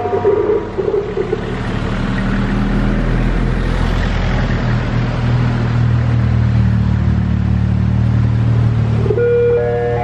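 A motor vehicle's engine running with a steady low hum, over an even rushing noise.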